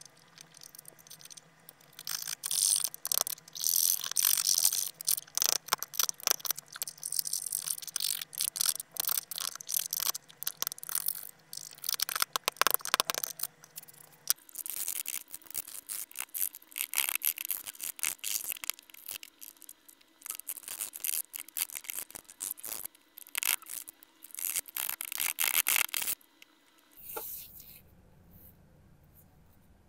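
A wooden toothpick scraping crusty corrosion off an old coin on a wooden tabletop, in quick scratchy strokes. About halfway through, after a cut, a paper towel rubs and wipes over the coin and table. The sounds fade to faint near the end.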